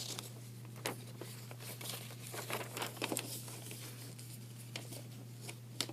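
A sheet of paper being folded and creased by hand into a paper airplane's triangle folds, with irregular crinkles and rustles.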